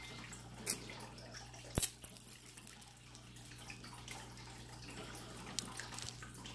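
Costume jewelry being handled and sorted: scattered light clicks and taps of beads and metal pieces, with one sharper click about two seconds in, over a faint steady low hum.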